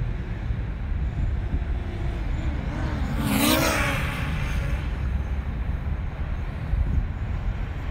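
DJI Mavic quadcopter flying past close by at about 40 mph: its propeller whine swells to a peak about three and a half seconds in, bending in pitch as it goes by, then fades. Under it runs a steady low rumble.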